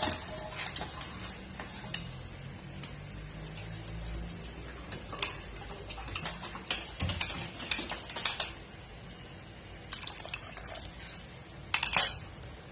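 A spoon stirring gravy in a metal pan, scraping and clinking against the sides, with a sharp clink near the end. The freshly added water is being mixed into the gravy so that the ground paste does not settle in lumps.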